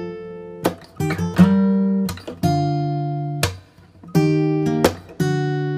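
Background music: an acoustic guitar strumming chords, each chord ringing out and fading before the next.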